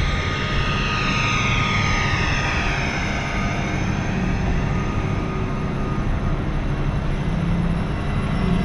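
Hydrogen fuel-cell ADL Enviro400 double-decker bus, converted from diesel, driving past at close range on its electric drive. A whooshing sweep falls in pitch over the first three seconds as it goes by, over a steady low hum.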